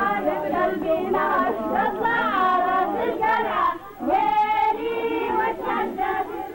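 A group of women's voices singing together, with some high wavering lines, and a brief dip about four seconds in before the singing carries on.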